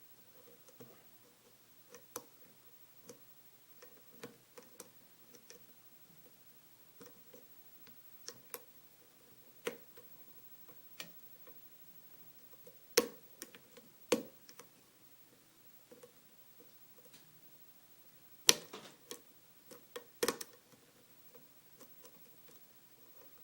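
Lock pick clicking and tapping against the pin stacks of a five-pin Kwikset lock during single-pin picking: small irregular clicks, with a few sharper, louder clicks around the middle and near the end.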